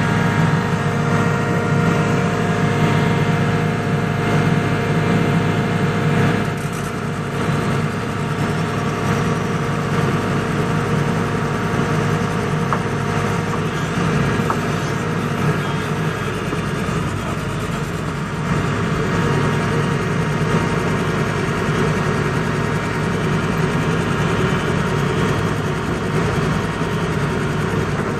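Excavator's diesel engine running steadily under load, heard from the operator's cab, as its bucket pushes a vibratory roller compactor up a steep dirt road. The engine sound drops somewhat in level from about six seconds in and comes back up about two thirds through.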